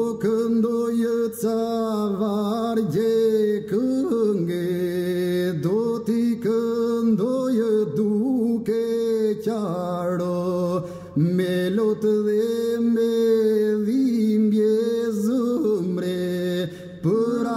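Albanian elegy (lament) sung by a lead singer's voice in long, drawn-out, heavily ornamented phrases, over a low steady drone.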